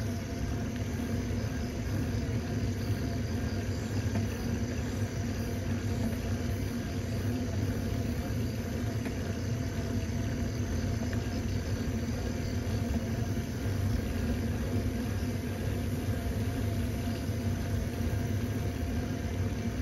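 Steady running drone and road rumble of a small vehicle driving along a paved road, even throughout with no changes in speed.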